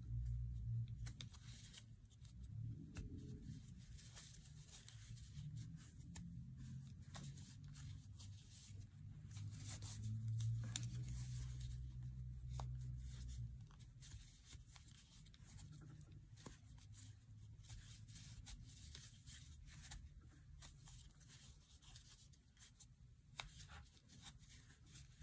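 Metal crochet hook working flat ribbon-like yarn in single crochet: faint rustle and scratch of the yarn being drawn through the loops, with many light clicks from the hook. A low hum rises and falls beneath, strongest from about ten to thirteen seconds in.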